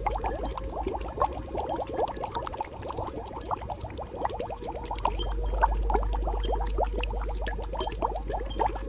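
Bubbling cauldron sound effect: thick liquid bubbling with a dense, continuous run of small pops, over a steady low hum.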